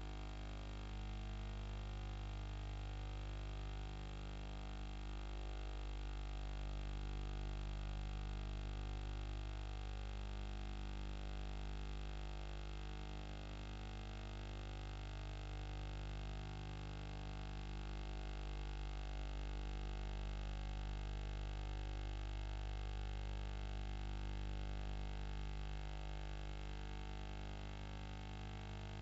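Quiet background music of sustained tones that shift slowly, with no beat.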